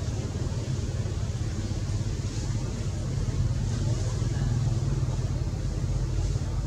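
Steady low engine rumble of an idling motor vehicle, growing slightly louder about three seconds in.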